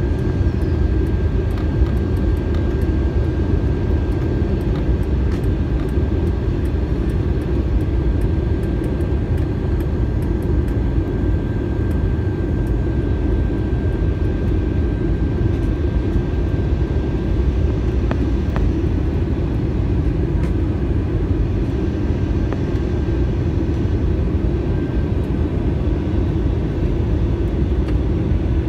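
Steady cabin noise of an airliner during its descent: a constant low rumble of engines and airflow, with a faint steady whine above it.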